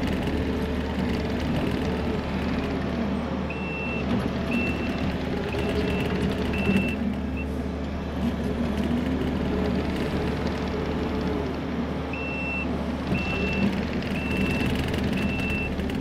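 Kubota SVL65-2 compact track loader's diesel engine running under working load, its pitch shifting as it moves. Its backup alarm beeps about once a second in two runs, from about three and a half seconds to seven seconds in and again from about twelve seconds on, as the machine reverses.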